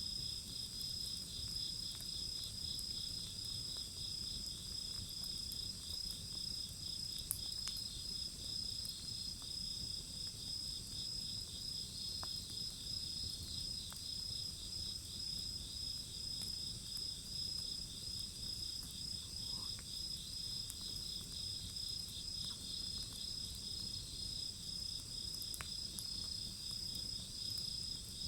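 Crickets and other autumn insects chirping steadily in several overlapping high trills, one with a fast pulsing beat. A few faint, isolated pops from a burning wood fire sound here and there.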